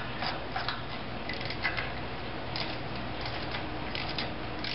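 Ratchet wrench clicking in short, irregularly spaced bursts as bolts on an antenna rotor's mounting plate are snugged up.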